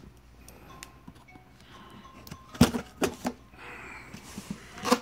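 A cardboard shipping box being handled and cut open with a knife: a few sharp knocks and taps against the box, the loudest about two and a half seconds in, and a short scraping slice of the blade through the packing tape a little before the end.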